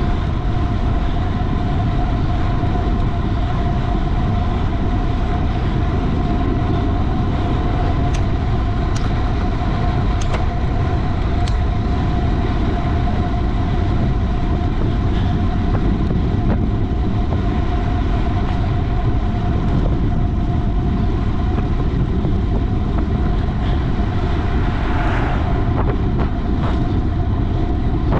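Wind rushing over the microphone and tyre noise of a road bicycle ridden fast, a loud steady rumble with a thin steady whine running through it and a few brief clicks.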